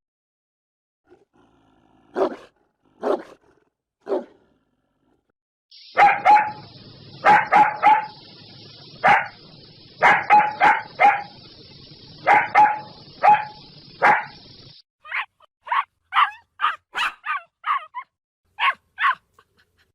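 Big dogs barking. First come three single barks, spaced apart. Then a run of loud barks over a steady hiss, and near the end a quicker series of barks.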